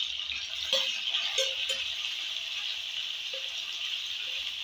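Paneer cubes frying in hot oil in a kadhai: a steady sizzle, with a few light knocks in the first two seconds.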